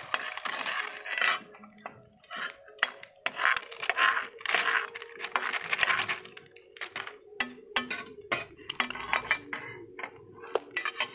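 A packet of snack mixture rustling as it is shaken out over a pan of rice, then a metal ladle clinking and scraping against the metal pan as the rice is stirred in short sharp strokes.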